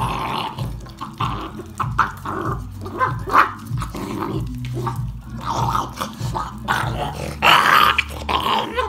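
American pit bull terrier puppies growling as they tug and chew at a chunk of raw meat on bone, a low continuous growl under irregular bursts of snarling and chewing. Loudest near the end.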